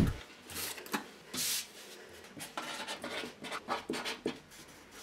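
A marker pen writing on a paper strip laid on a plywood board: a quick run of short strokes in the second half, after a dull thump at the start and a couple of longer rubs of paper sliding over the wood.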